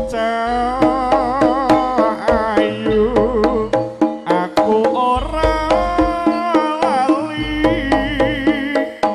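Javanese jaranan ensemble music: a drawn-out melody with a strongly wavering pitch over regular drum strokes, with long deep booms underneath.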